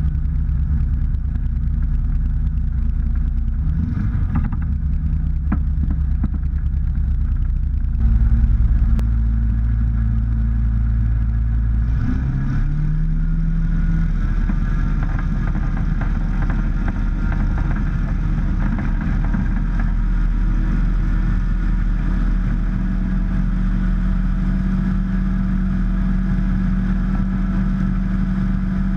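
Rotax 912UL flat-four engine of a Drifter ultralight running steadily at low power, stepping up about a third of the way in, then opening up with a quick rise in pitch to takeoff power and holding steady through the takeoff run and climb-out, with propeller and wind noise.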